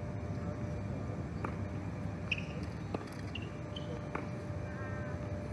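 Steady low outdoor rumble with three faint sharp knocks about a second and a half apart and a few brief high chirps.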